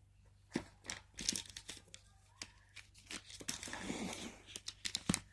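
Phone packaging being handled: rustling and crinkling, with a string of light clicks and knocks as the accessories go back into the box, and a longer rustle about three seconds in.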